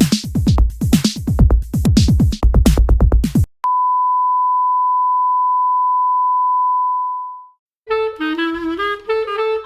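Electronic music with a pounding beat that cuts off abruptly, followed by a single steady high beep tone lasting about four seconds that fades away. Then jazzy music with horn-like notes starts up near the end.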